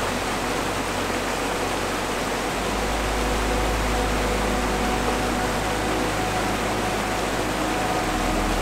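Mountain creek rushing over rocks and small cascades: a steady, even rush of water.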